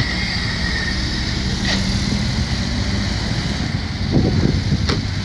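Ferrari sports car's engine running at low speed as the car drives slowly past close by.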